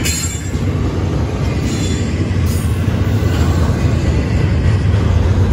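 Double-stack intermodal well cars of a freight train rolling past close by: a steady heavy rumble of steel wheels on the rails, with brief high-pitched noise near the start and again about two seconds in.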